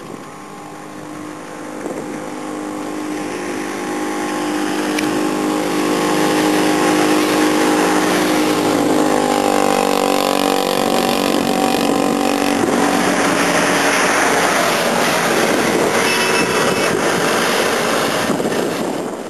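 A motor vehicle's engine running close by with a hiss of road and wind noise, building up over the first few seconds. Its pitch slides down in the middle, and it drops off sharply near the end.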